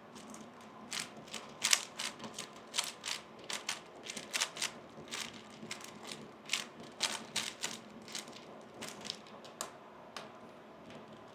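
3x3 Rubik's cube being turned quickly by hand: a run of irregular plastic clicks and clacks as the layers snap round, stopping about ten seconds in.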